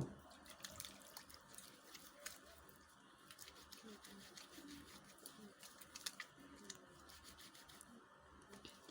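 Faint wet squishing and small clicks of hands rubbing a bar of handmade soap into a lather.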